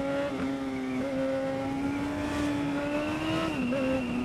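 Yamaha FZ1's inline-four engine pulling steadily under way, its pitch climbing slowly as the revs rise, then dropping a step near the end as the throttle eases.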